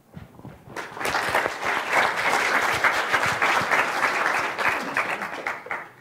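Audience applauding, rising about a second in and dying away near the end.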